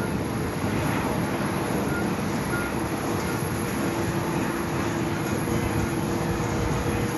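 Airbus A350-900's jet engines running with a steady rumble, with a faint steady hum and a thin high whine over it.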